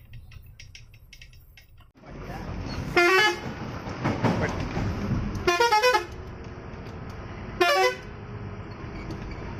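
A heavy vehicle's multi-note horn sounded three times, each blast a quick run of changing notes, over steady engine and road noise inside the cab.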